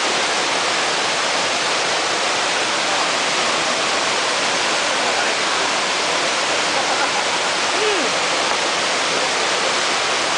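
Small waterfall pouring over rocks into a mountain stream: a steady, even rush of water.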